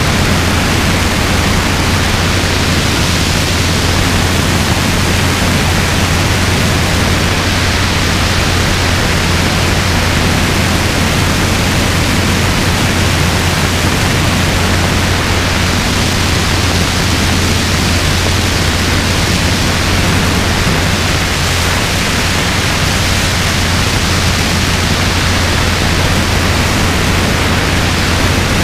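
Robinson R22 helicopter in flight: a steady, loud rush of wind and rotor noise over a constant low drone, with wind hitting an outboard arm-mounted microphone.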